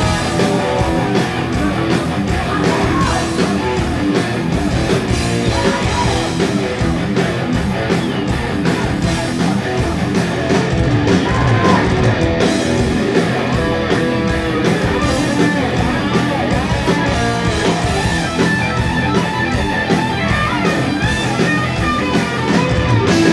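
Heavy metal band playing live: distorted electric guitars over drums, with sung vocals, recorded loud from among the audience.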